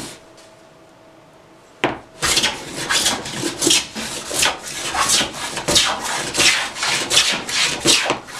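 Hand bench plane shaving a board lengthwise. After a quiet pause there is a sharp knock, then a run of quick, even planing strokes, about two or three a second, each a rasping swish as the iron lifts a shaving.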